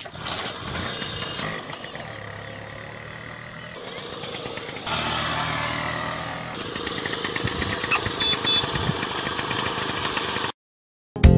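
Lambretta Lamby 150 scooter's two-stroke single-cylinder engine running as the scooter is ridden, getting louder about five seconds in. The sound cuts off suddenly near the end.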